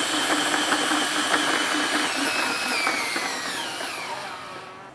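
Makita cordless drill running a hand-crank meat mincer at full speed with the grinder nearly empty, then slowing with a falling whine and winding down near the end.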